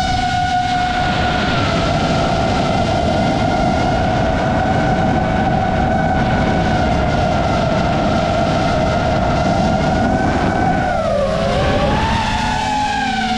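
FPV quadcopter's motors and propellers whining steadily in flight. Near the end the pitch dips and then climbs back as the drone banks into a turn.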